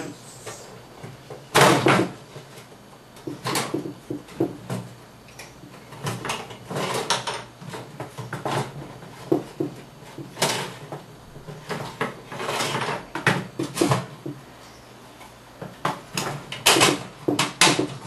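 A small wire bird cage clattering and knocking as it is handled and its wooden spacer slats are pulled out and laid on the table, with a few short scraping slides of wood against metal and plastic. The knocks come irregularly, with a sharp one about a second and a half in and a cluster near the end.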